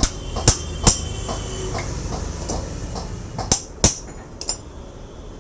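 Sharp metallic knocks and clinks from motorcycle engine parts being tapped or handled during teardown: three strikes in the first second, then three more between about three and a half and four and a half seconds in, with fainter clicks between.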